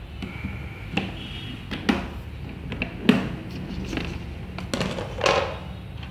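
Clear plastic storage box being opened: its snap latches unclipping and the plastic lid lifted off, making about five sharp plastic clicks and knocks, the loudest about three seconds in, over a steady low hum.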